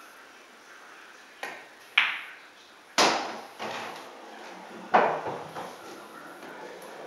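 A pool shot: a light tap of the cue tip on the cue ball, a sharp click about half a second later as it hits an object ball, then louder hard knocks with a ringing decay, at three and at five seconds, as balls hit and drop.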